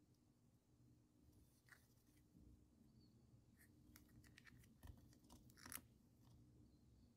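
Near silence with faint, scattered clicks and scratches of fingers and nails handling hard cast-resin badges with metal brooch pins, a few sharper ticks about five to six seconds in.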